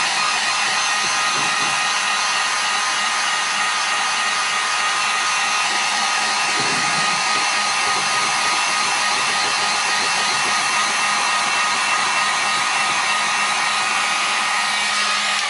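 Electric heat gun running steadily: an even rush of blown air with a faint, steady motor whine, as it is fanned over a plastic helmet shell to heat it.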